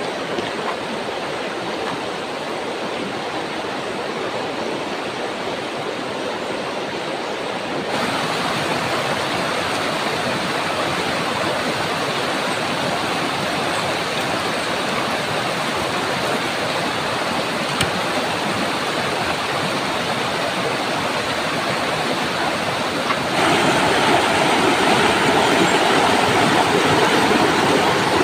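Shallow river running over stones, a steady wash of water that steps up in level about eight seconds in and again near the end.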